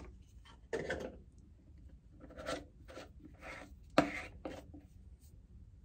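A plastic face-mask jar and its lid being handled and twisted shut: a few short scraping rubs, with one sharp click about four seconds in.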